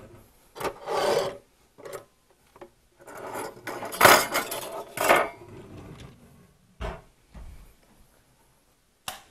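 Metal kitchen utensils and cookware clattering and scraping as they are handled on a counter, in a series of separate bursts, loudest about four and five seconds in.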